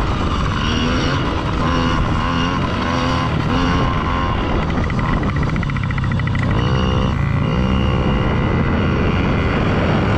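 Yamaha PW50 dirt bikes' small two-stroke engines running, the revs rising and falling again and again over a steady rush of noise.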